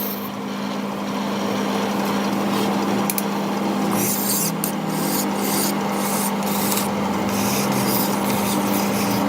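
Metal being filed or abraded by hand in rhythmic scraping strokes, about two a second, from about four seconds in, over the steady hum of a running workshop machine.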